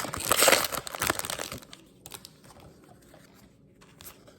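Trading-card pack wrapper crinkling loudly as it is opened, stopping about a second and a half in; a few faint clicks follow as the cards are handled.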